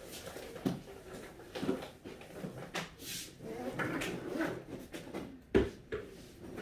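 Belongings being handled in a small room: rustling and light knocks, with a sharp knock or thump about five and a half seconds in.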